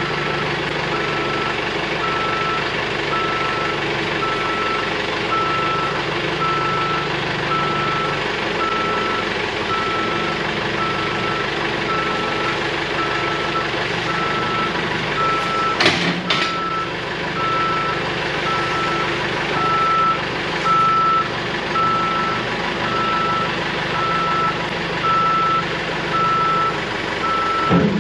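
Caterpillar backhoe loader's backup alarm beeping steadily about once a second over its diesel engine running, the machine in reverse. A sharp knock sounds about halfway through and again at the end.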